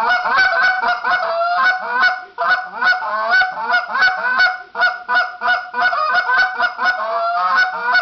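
Goose call blown in a fast run of rapid clucks and honks, with drawn-out train notes that rise and tail off mixed in. There are brief breaks about two and a half seconds in and near the five-second mark.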